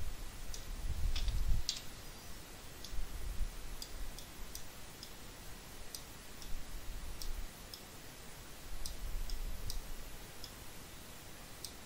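Computer mouse clicking at an irregular pace, about twenty sharp clicks in all, with a few stretches of low, dull rumble underneath.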